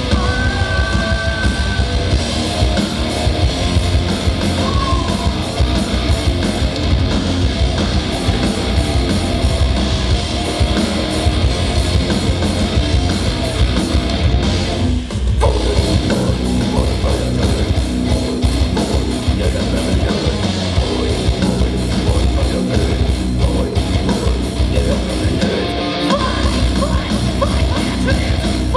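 Live heavy metal band playing at full volume: distorted electric guitars, bass and drums, with vocals. The band breaks off for a moment about halfway through, then comes straight back in.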